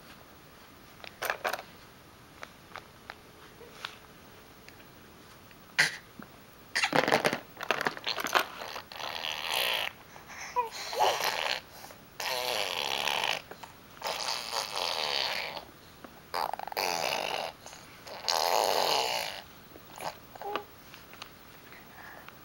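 A six-month-old baby blowing raspberries, her lips buzzing to make fart sounds. It comes as a series of about seven spluttering bursts, each up to a second and a half long, after a few short clicks at the start.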